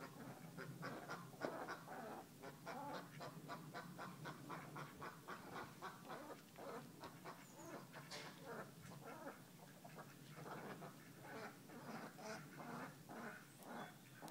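Ducks quacking faintly in a continuous run of short, rapid calls, about three or four a second.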